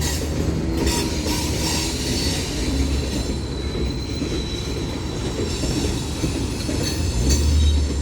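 Freight train cars rolling past with a steady rumble and scattered wheel clacks, and a thin, high wheel squeal in the middle.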